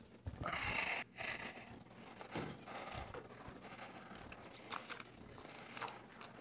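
Rustling, then scattered knocks and clicks, picked up by a clip-on microphone as a man stands up and steps to a lectern with a book in hand. The rustling is loudest in the first second or so.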